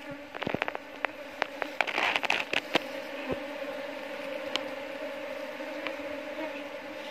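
A newly hived swarm of Asian honeybees (Apis cerana indica) buzzing around a wooden hive box, a steady hum that comes to the fore after about three seconds. Before it comes a run of sharp clicks and crackles.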